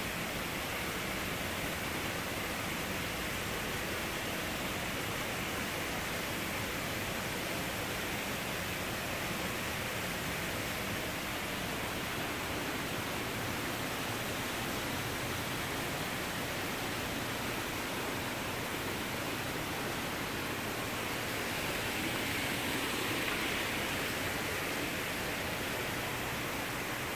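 Steady rush of running water from the koi pond's water feature, swelling slightly about 22 seconds in.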